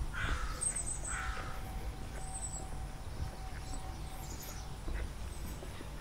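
A crow cawing twice, the calls about a second apart in the first two seconds, with faint high chirps of small birds around them.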